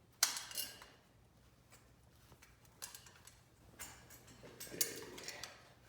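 Metal clinks and clacks as a pin is worked out of a garage door opener reinforcement bracket: one sharp clack about a quarter second in, then lighter scattered clinks from about halfway through.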